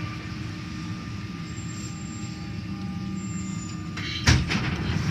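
Rubber-tyred NS-93 metro train heard from inside the car as it creeps to a stop at a platform: a steady low running rumble with a faint thin motor whine. About four seconds in there is one sudden loud thump, with a few short rattles after it.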